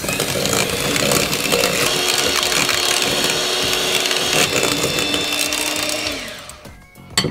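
Electric hand mixer running steadily, its beaters whisking thick cheesecake filling in a glass bowl until it thickens, then winding down and stopping about six seconds in.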